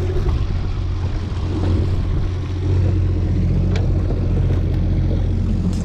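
Outboard motor running steadily at trolling speed, a low even drone, with water rushing along the boat's side.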